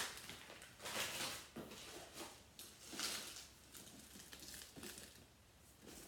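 Soft rustling and crinkling of gift packaging and snack wrappers being handled, in several short bouts.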